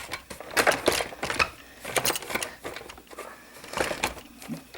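Irregular clicks and light knocks of the Designer 1 sewing machine's plastic housing and parts being handled and fitted back together.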